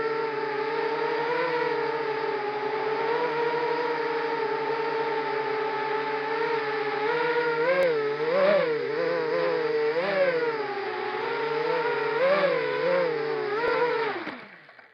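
ZMR250 racing quadcopter's brushless motors and propellers whining in flight, the pitch rising and falling with the throttle. Near the end the pitch drops and the motors wind down to near silence.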